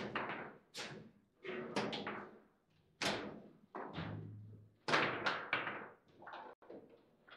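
Table football in play: an irregular series of sharp knocks and thuds as the ball is struck by the player figures and bangs against the table, loudest about three and five seconds in.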